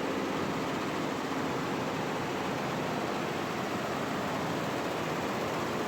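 Embroidery machine running steadily, an even mechanical whir with a faint hum.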